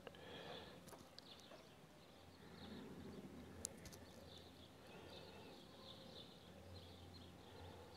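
Faint sloshing of water swirled around a plastic gold pan while panning down black sand concentrate, with a sharp click about three and a half seconds in.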